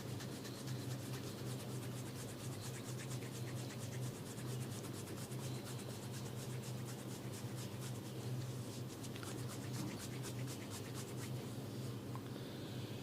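Hands rubbing and massaging skin and hair in a head and neck massage: a run of quick, fine scratchy strokes, thickest around the middle, over a steady low hum.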